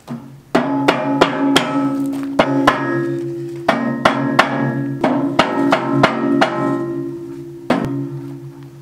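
Mallet blows at uneven intervals on a steel tooth bar being seated onto the cutting edge of a tractor loader bucket. The steel bucket rings on for seconds after each run of blows.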